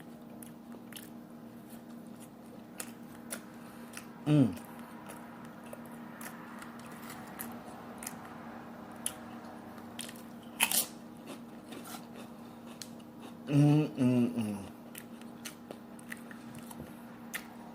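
Close-up mouth sounds of a person eating a cheeseburger: biting and chewing, with many small wet clicks and smacks over a faint steady hum. Two short hummed vocal sounds with falling pitch come about four seconds in and near fourteen seconds.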